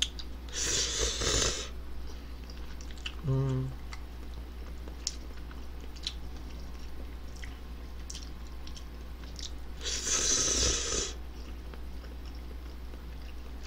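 A person slurping instant ramen noodles, two loud slurps of about a second each, one near the start and one about ten seconds in, with quiet chewing and small clicks between and a short hum about three seconds in.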